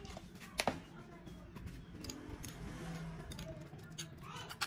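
A sharp knock about half a second in, then light, irregular clicks of a spoon against a ceramic bowl as a dipping sauce is mixed.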